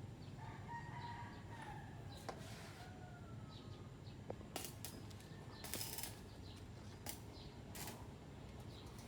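A rooster crowing once, a long call falling in pitch at the end. Later come four short, sharp hissing crackles, one every second or so, over a low steady background rumble.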